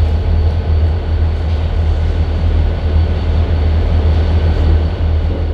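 Steady low rumble of an idling diesel locomotive engine.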